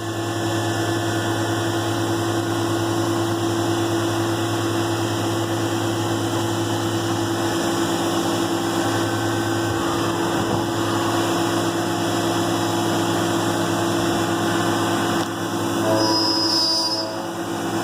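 CNC milling machine running its program with the spindle turning a carbide end mill: a steady mechanical hum with a hiss behind it. A few brief higher tones join it near the end.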